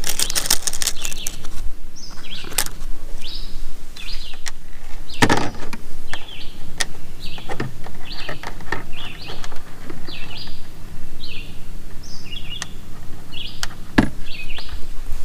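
Short high chirps repeating about once a second, typical of a small bird calling, over a steady low hum. Sharp clicks and knocks of small parts and tools being handled come near the start, at about 5 seconds and near the end.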